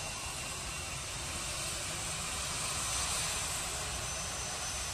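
Airbus A320 airliner's jet engines running as it rolls past on the runway: a steady rushing noise with a faint high whine, swelling slightly about three seconds in.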